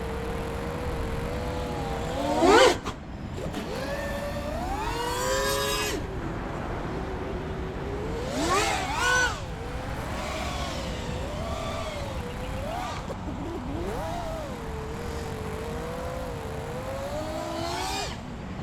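The brushless motors of a Nazgul Evoque F5X V2 FPV quadcopter whine in flight, their pitch rising and falling with the throttle. Two sharp throttle punches, one about two and a half seconds in and another around nine seconds, send the whine sweeping up and are the loudest moments.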